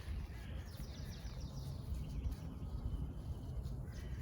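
Outdoor background: a low steady rumble, with a faint, high, rapidly repeated chirping trill about a second in.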